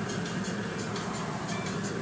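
Car wash tunnel noise heard from inside a waiting car: a steady machinery hum under the hiss of pressure-wand water spray, pulsing a few times a second.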